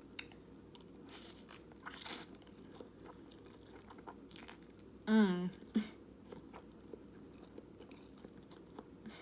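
A person chewing a big mouthful of saucy noodles, with wet mouth smacks and small clicks. About five seconds in there is a brief hummed 'mm'.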